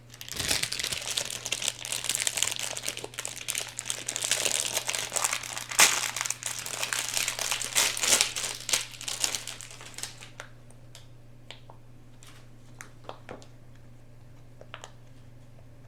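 Plastic packaging crinkling densely as it is handled and pulled off a pop-it fidget toy, for about ten seconds. Then only a few scattered light clicks.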